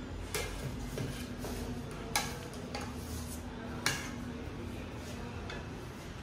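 Three sharp clinks of kitchen utensils against dishes, spaced a couple of seconds apart, over a steady low hum.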